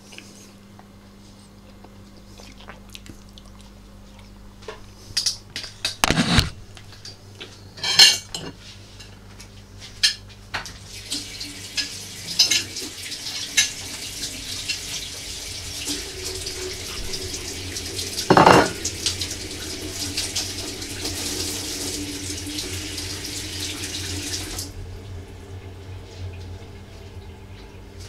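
Dishes and cutlery clattering, with several sharp knocks, then a tap running into a sink for about fourteen seconds before it is turned off suddenly.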